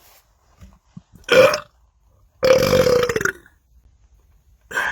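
A man belching after gulping carbonated soda: one long belch about two and a half seconds in, lasting close to a second, with a shorter burst about a second earlier.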